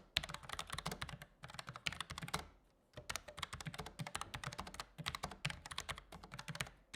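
Typing on a Logitech MX Mechanical keyboard with low-profile tactile Brown switches: fast, irregular runs of keystrokes, with a short pause a little before halfway.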